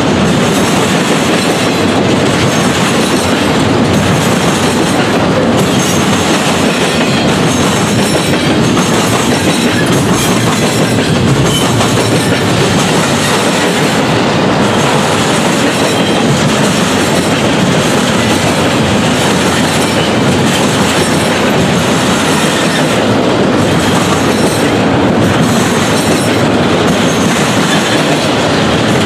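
Norfolk Southern intermodal freight train's double-stack container well cars rolling past at close range: a loud, steady rolling noise of steel wheels on the rails.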